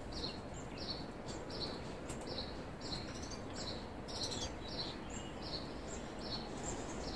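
A small bird chirping over and over, short high chirps about two a second, over a steady low background noise.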